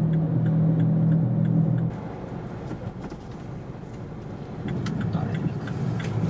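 Car engine and road noise heard from inside the cabin while driving. A steady low hum for about two seconds drops off suddenly, then the low running noise grows louder again near the end.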